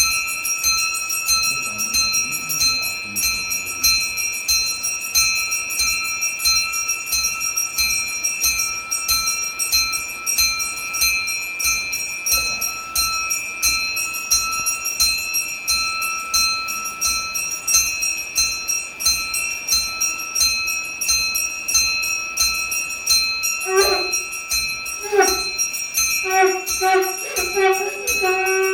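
Puja hand bell (ghanti) rung rapidly and continuously in rapid, even strokes, its high ringing tone held steady. From about four seconds before the end, a deeper-toned bell is struck a few times as well.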